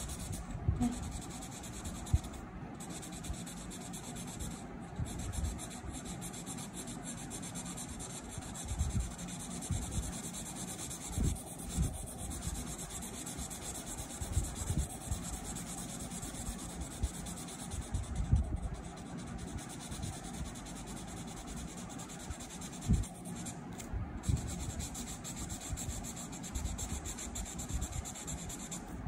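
Deli felt-tip marker scratching back and forth across paper, colouring in an area with quick strokes, with occasional soft low thumps.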